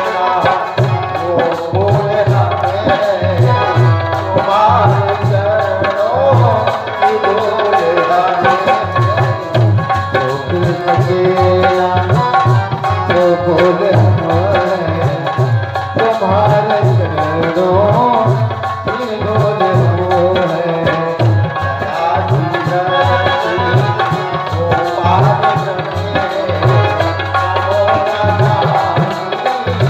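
Devotional aarti music: hand drums keep a quick steady rhythm under a wavering melodic line.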